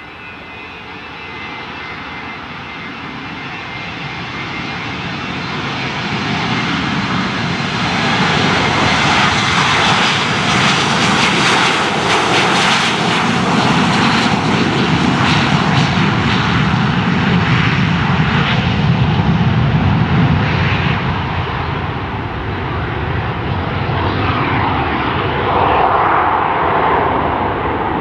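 Boeing 737-200's Pratt & Whitney JT8D jet engines at takeoff thrust during the takeoff roll and climb-out: a high whine at first, growing over the first eight seconds into loud, rough engine noise that holds as the jet passes and climbs away.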